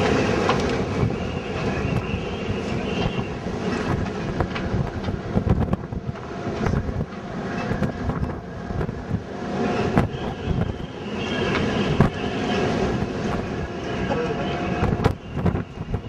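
Wind rumbling against a handheld camera's microphone, with small knocks and clicks of the camera being handled.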